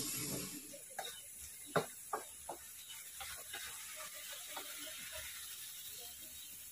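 Metal spatula clinking and scraping against a wok as shrimp are stir-fried, with a few sharp clinks in the first few seconds and lighter ones after, over a steady faint hiss.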